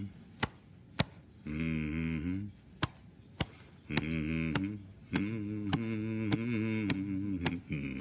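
A man humming with his mouth closed, a low rhythmic 'mm-mm' chant in short rising and falling phrases. Sharp chest thumps keep a steady beat under it, about two a second.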